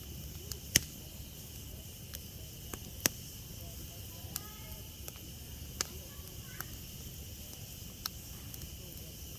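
Campfire wood crackling, with sharp irregular pops every second or so over a steady hiss.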